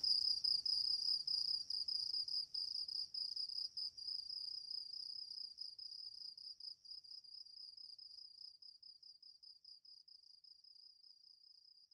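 Crickets chirping in a rapid, high pulsing trill that fades out steadily.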